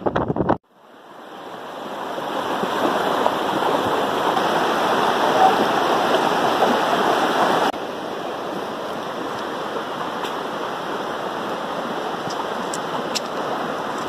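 Steady rush of flowing stream water that swells in over the first couple of seconds. It drops suddenly to a lower level about eight seconds in and carries on steadily.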